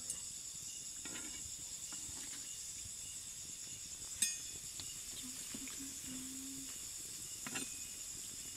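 Steady high-pitched chirring of crickets over the soft sizzle of gaja dough pieces deep-frying in oil in an iron kadai. About four seconds in, the slotted metal spoon strikes the pan with a sharp clink, and a lighter knock follows near the end.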